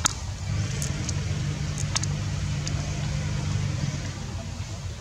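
A motor vehicle engine running steadily at low revs, with a few faint sharp clicks.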